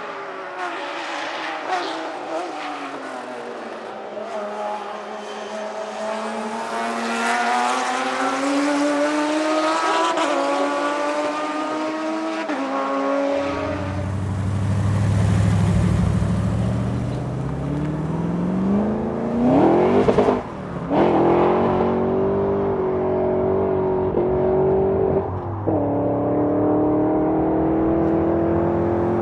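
Racing car engine accelerating through the gears, its pitch climbing and dropping back at each upshift. About halfway through, a deeper-sounding car engine takes over, revs up sharply and then holds at steady high revs.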